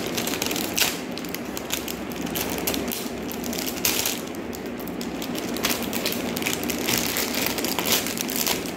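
Thin plastic sachet crinkling and crackling steadily as it is handled and crumpled in the hands.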